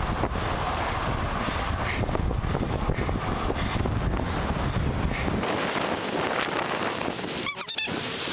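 Wind buffeting a helmet-mounted camera's microphone as a bicycle rides along a busy road, a steady rush mixed with passing traffic. The low rumble drops away about two-thirds of the way through, and near the end there is a brief high warbling sound.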